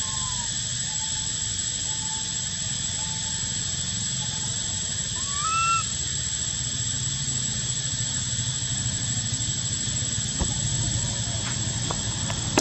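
Steady outdoor background of hiss and a constant high whine, with faint short calls repeating about once a second in the first few seconds. About halfway through comes one louder, rising coo from a baby long-tailed macaque.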